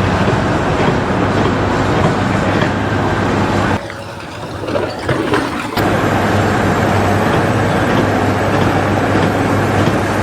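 Loud steady mechanical rumble with a constant low hum, dropping away for about two seconds near the middle and then coming back.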